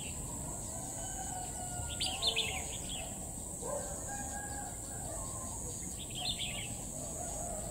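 Red-whiskered bulbul singing: short bursts of quick, bright chirping notes, about two seconds in and again about six seconds in. Lower drawn-out calls from another bird and a steady high hum lie beneath.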